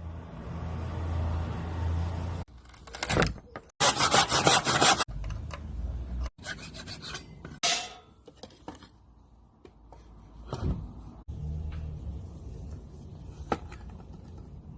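A tool rasping and rubbing against wood in a run of short clips cut together, the loudest stretch a few seconds in. In some clips a low steady hum runs underneath.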